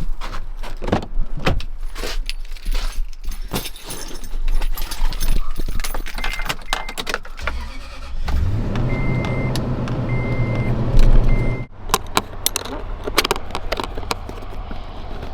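Knocks and clatter with jangling keys, then a pickup truck's engine starts about halfway through and idles for a few seconds, while a chime beeps in short repeated pulses, before the engine sound cuts off suddenly.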